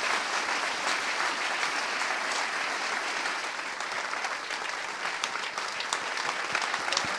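Audience applauding steadily, many hands clapping at the end of a speech.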